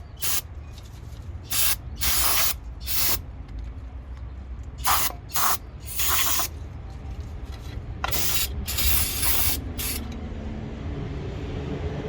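Aerosol can of brake cleaner spraying in a series of hissing blasts, most short and a few lasting up to a second or more. The spraying stops about ten seconds in.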